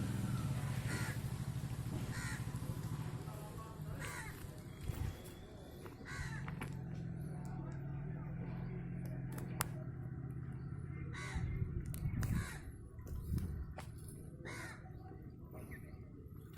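Short cawing bird calls repeated every second or two over a steady low engine hum. The hum dips briefly about five seconds in and fades after about eleven seconds.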